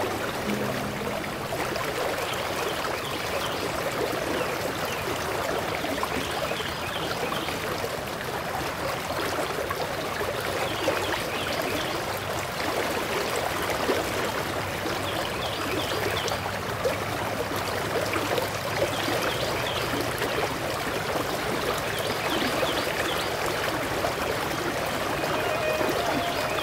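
Running stream water, a steady rushing and trickling over rocks.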